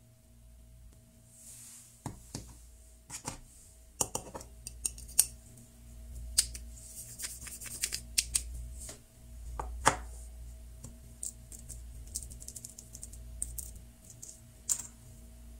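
Close-up handling of a plastic toy rolling pin and Play-Doh: a scattered run of sharp clicks and light plastic taps, with soft rubbing and squeezing of the dough toward the end.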